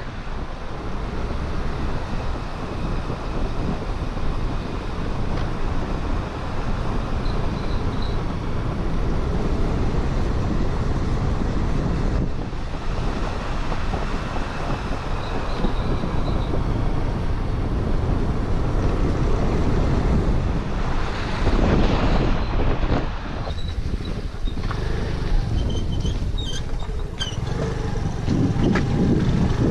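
Honda Activa scooter being ridden along a hill road: a steady rush of wind over the microphone with engine and tyre noise. It gets louder and knocky near the end as the road turns to rough, muddy gravel.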